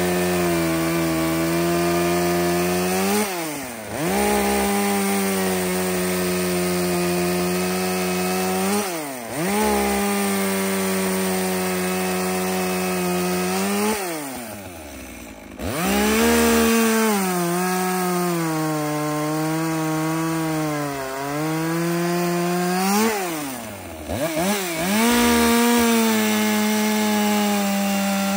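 Top-handle chainsaw cutting through a log at full throttle. Its pitch sags a little under load, and four times it drops off sharply and picks back up as the throttle is eased and reapplied.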